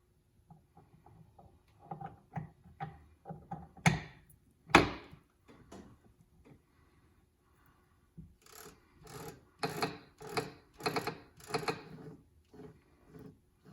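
Metal gears and parts in the open gearbox of a KitchenAid Professional 550 HD stand mixer clicking and clanking as they are fitted and turned by hand, with the motor off. Two louder knocks come close together, then a run of about eight quick, evenly spaced clacks.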